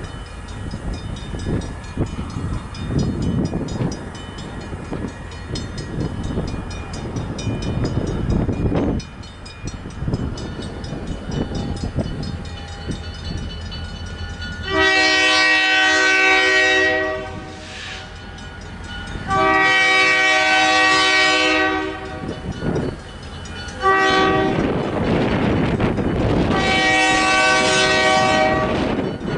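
EMD GP30 diesel locomotive rumbling as it approaches, then sounding its Nathan K5LA five-chime horn for the grade crossing in three long blasts, the first about halfway through.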